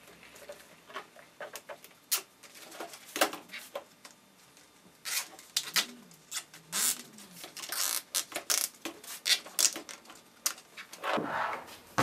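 Zip ties being threaded through a pleated furnace filter's cardboard frame and pulled tight against a plastic box fan: irregular plastic clicks, rustles and scratches. Near the end a longer scrape as the fan and filter are lifted.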